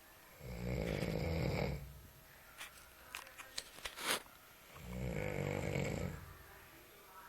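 Loud snoring in sleep: two long, low rasping snores, each about a second and a half, a few seconds apart, with a few sharp clicks in between.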